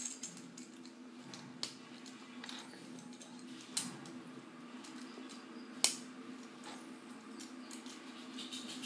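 Plastic Mega Bloks pieces being handled and pressed together: scattered sharp clicks a second or two apart, the loudest about six seconds in, over a low steady hum.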